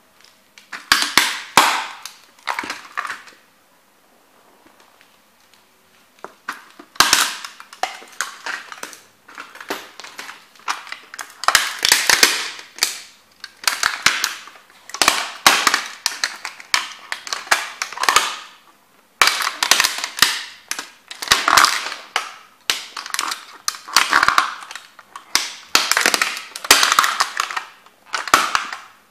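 Hard plastic model car cracking, snapping and crunching under the soles of Timberland boots as they stomp and grind on it, in clusters of sharp crackles. A short burst about a second in, a pause of a few seconds, then near-continuous crunching from about seven seconds on.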